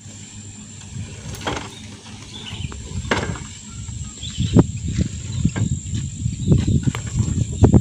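A steady, high-pitched insect drone over irregular low rumbling and scattered thumps, which grow louder toward the end.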